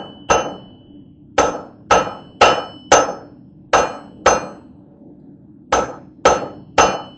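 Hand hammer forging the hot tip of a welded wire blade on an anvil: about a dozen sharp blows in short runs about half a second apart, with brief pauses between runs, each blow ringing.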